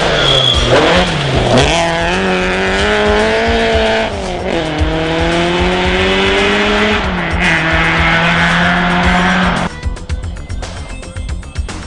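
Rally car engine at high revs as the car passes and accelerates away, the note dipping and climbing again at gear changes about four and seven seconds in. The engine sound drops away sharply near the end, leaving faint clicking and crackle.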